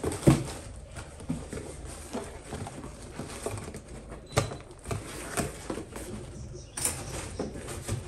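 Cardboard shipping box being opened by hand: irregular rustles, scrapes and knocks of cardboard, tape and packing, with a few sharper knocks and a short burst of rustling near the end.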